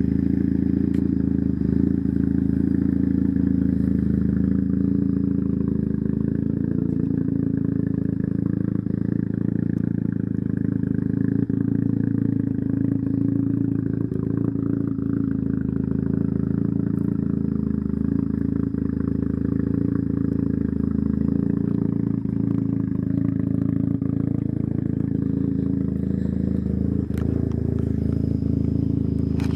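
Mazda RX-7 FD3S's twin-turbo 13B-REW two-rotor rotary engine idling steadily, holding an even pitch with no revs.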